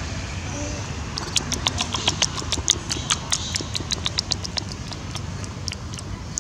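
A quick, irregular run of sharp clicks, several a second, starting about a second in and dying out near the five-second mark, over a steady low background rumble.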